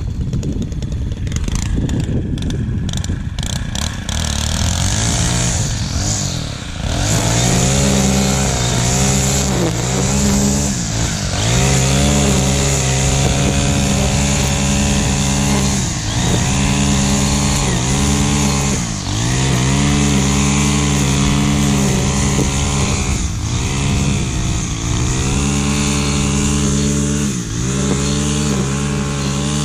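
A small engine comes in about five seconds in and runs steadily, its speed dipping briefly every few seconds as it works. Before it, the first few seconds hold a noisy clatter.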